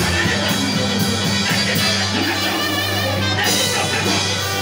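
Loud church praise music with guitar and drums over a held bass note.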